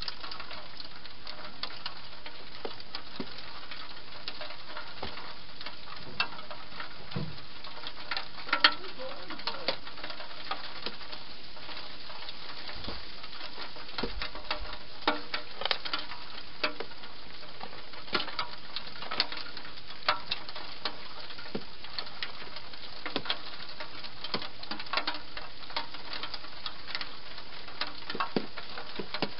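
Wild hedgehog feeding: quick, irregular chewing and smacking clicks over a steady hiss, growing busier in the second half.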